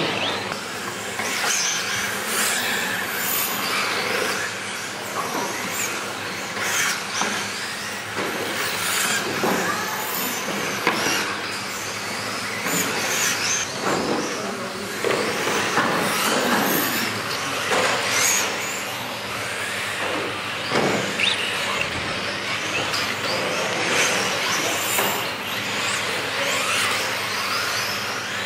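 Several radio-controlled touring cars running on a carpet track, their motors and tyres surging louder every second or two as cars pass close by.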